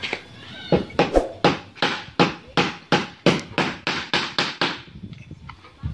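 A steady series of about a dozen sharp knocks, roughly three a second, that stops about five seconds in.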